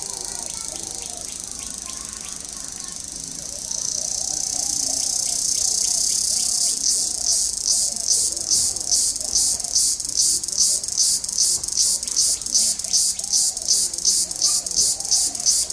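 Loud, high-pitched insect buzz that gets louder about four seconds in and from about seven seconds in pulses about twice a second, with faint bird calls underneath.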